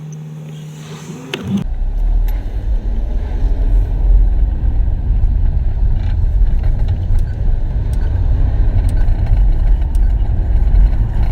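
Loud low rumble of wind buffeting the camera's microphone, with scattered handling knocks, starting suddenly about a second and a half in.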